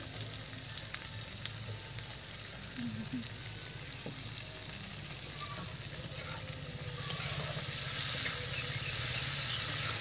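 Potatoes, onions and green chillies frying in hot oil in a pan, sizzling steadily, with a few light clicks of a spatula stirring. The sizzle grows louder about seven seconds in.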